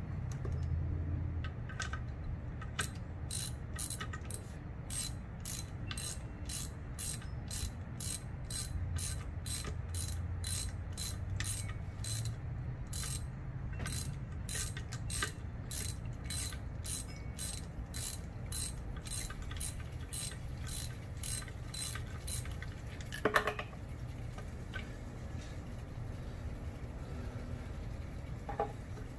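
Hand ratchet wrench clicking steadily, about two clicks a second, as a bolt on an engine cylinder head is turned with it. Later a single louder metal clank.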